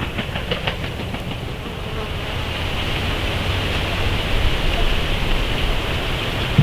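Steady hiss and low rumble on a trail camera's microphone, with a few faint ticks in the first second.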